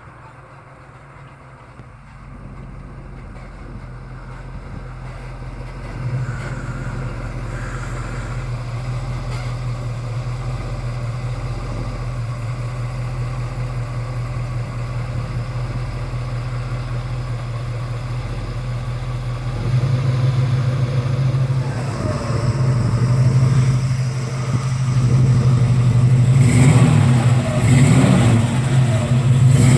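1970 Ford Torino GT's 351 Cleveland four-barrel V8 running, with a steady low exhaust note. It grows louder over the first several seconds as the car approaches, steps up in loudness about twenty seconds in, and becomes rougher and louder near the end.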